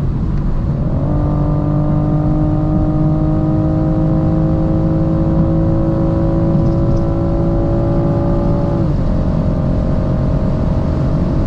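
BMW M440i's turbocharged straight-six with an AC Schnitzer exhaust, pulling at autobahn speed over steady road and wind noise. Its tone climbs about a second in, then holds and rises slowly, and drops in pitch about nine seconds in.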